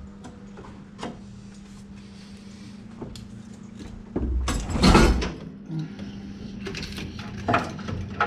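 Cylinder head of a Honda D15B engine, intake manifold still bolted on, being worked loose and lifted off the block: a few light metal clicks, then a loud scraping clunk lasting about a second, some four to five seconds in, as it breaks free, and a couple of sharper metal knocks near the end.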